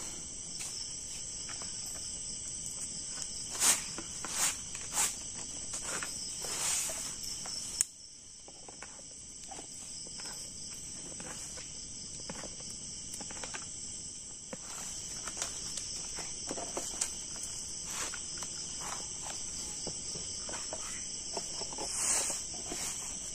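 Steady high-pitched trilling of night insects in the forest, with a few sharp clicks and knocks from plastic plates and utensils being handled, the loudest of them a few seconds in. The background level drops abruptly about eight seconds in.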